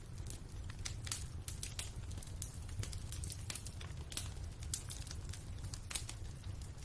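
Wood fire crackling in a fireplace, with frequent irregular sharp pops and snaps over a low steady rumble.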